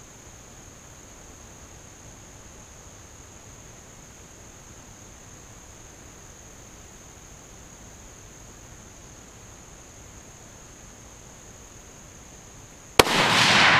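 A single .308 rifle shot from a Tikka T3X Lite fitted with a muzzle brake, about 13 seconds in: one sharp crack followed by a long echo that dies away slowly. Before it there is only a faint steady background with a thin high tone.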